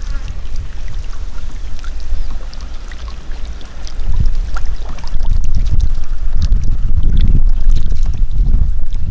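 Wind buffeting the microphone: a loud, uneven low rumble that grows stronger about four seconds in, with faint scattered ticks above it.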